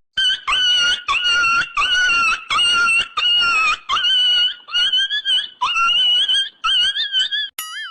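Comedy sound effect: a run of about ten short, high-pitched squeals in quick succession, each wavering in pitch. It ends with a click and a brief wobbling, warbling tone.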